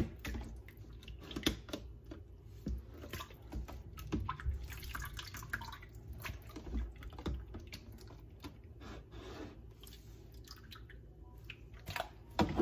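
Water splashing and dripping as hands wash pieces of catfish in a plastic tub, in irregular small splashes with a louder splash at the start.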